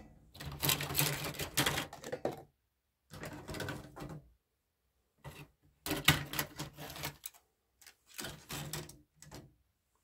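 Printed circuit boards salvaged from DVD players clattering and scraping as they are piled onto a digital scale, in four separate bursts with pauses between.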